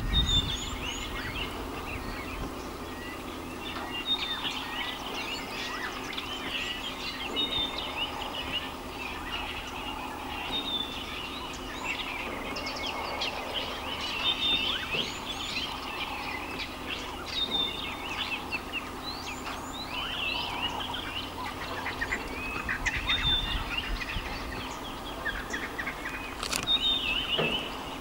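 Wild birds chirping and calling, many short overlapping calls throughout, over a steady low background noise.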